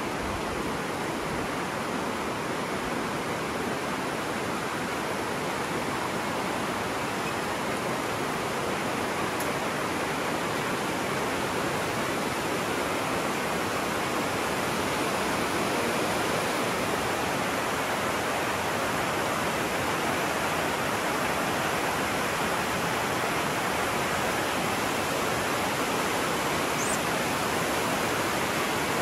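Steady rush of a river's rapids flowing below, a little louder from about halfway through.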